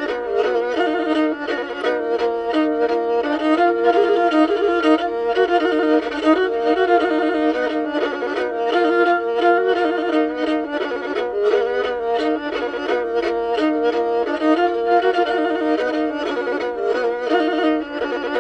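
Pontic lyra (kemenche) playing a fast, ornamented instrumental melody, with quick bow strokes and rapidly changing notes.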